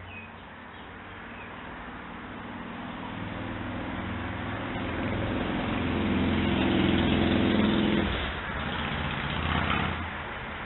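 A car engine running and growing steadily louder for about seven seconds, then dropping away sharply about eight seconds in, with a short sharper noise a little later.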